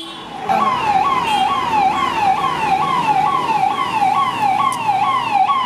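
Electronic siren sounding a rapid repeating falling wail, about two sweeps a second, each one dropping quickly from a high pitch to a lower one. It starts about half a second in.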